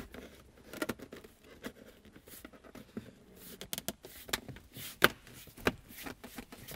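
Plastic centre armrest cubby box lid of a Lotus Carlton being worked onto its hinge rod by hand: a scatter of light plastic clicks and knocks with soft handling scrapes, the two sharpest clicks about five seconds in as the hinges snap onto the rod.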